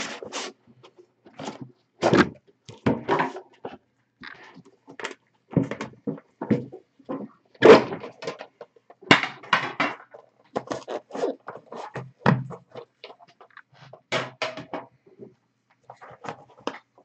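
Cardboard trading-card boxes being handled: an irregular run of knocks, taps and rustling scrapes as a box is slid out and an inner pack box lifted out.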